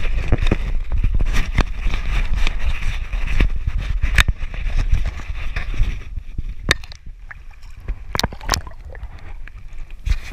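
Handling noise from a camera being swung about over the water: a rumbling buffet on the microphone with rubbing and clicking, some water sloshing, and a few sharp separate knocks in the second half.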